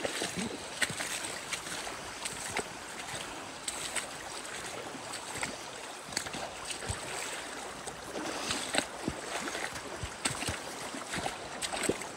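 Fast river water rushing over a gravel riffle, a steady wash of noise, with scattered small clicks and knocks throughout.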